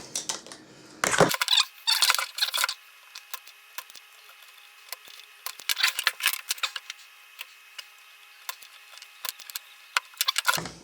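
Old 470 µF 50 V electrolytic capacitor being worked off a circuit board. A burst of louder scraping comes about a second in, then scattered small sharp clicks and crackles until it comes free.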